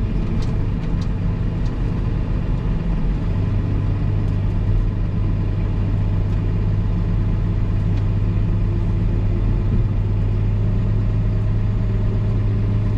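Old Massey Ferguson tractor's engine running steadily under load with a low drone. Its note steps up and grows stronger about three seconds in, then holds.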